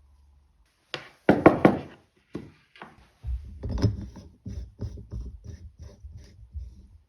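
Hand work on wood: a quick cluster of loud scraping strokes about a second in, then a run of short knocks, about two a second.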